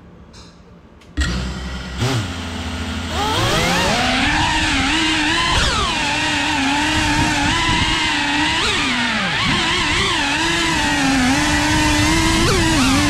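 FPV quadcopter's electric motors and propellers starting about a second in and holding a steady low tone, then rising in pitch around three seconds in as it takes off. The whine then wavers up and down with the throttle as it flies.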